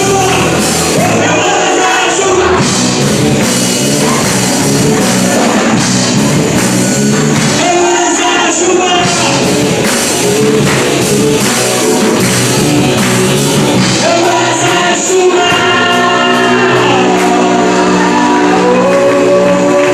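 Worship band playing a song, loud and full, with voices singing over it; from about three-quarters of the way through, the singing settles into long held notes.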